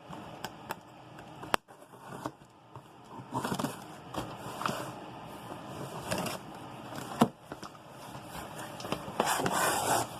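Retail packaging handled by hand: irregular rustling and scraping, with a few sharp clicks, the loudest about a second and a half in and about seven seconds in.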